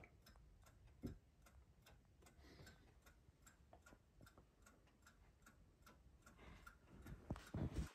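Faint steady ticking of a mantel clock, about three ticks a second, with a single knock about a second in and a few soft knocks near the end.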